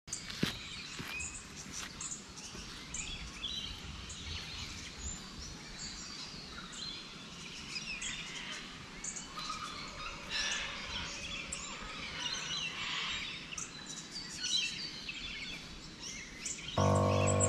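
Outdoor ambience of many birds calling and chirping over a light background hiss. Sustained music notes come in near the end.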